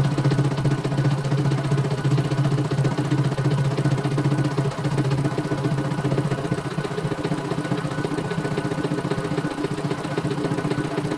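CNY E900 computerized embroidery machine stitching a design: a steady, fast run of needle strokes over a low motor hum, the embroidery hoop carriage stepping along as it sews.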